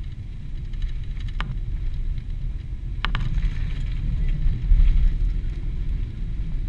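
Boeing 777-300ER touching down and rolling out on the runway, heard from inside the cabin: a steady low rumble with a few sharp knocks, the strongest about three seconds in. After that the rumble grows louder as the ground spoilers stand up on the wing.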